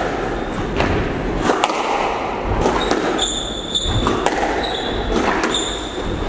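Squash rally: sharp knocks of the ball off rackets and the court walls every half second to a second, echoing in the enclosed court. From about halfway on come short high squeaks of court shoes on the wooden floor.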